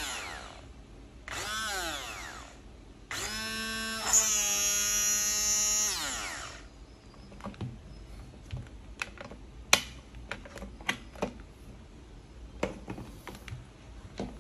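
Braun hand blender's electric motor switched on in short bursts, each spinning up and winding down in pitch, then one longer run of about three seconds that winds down. Light clicks and knocks follow in the second half.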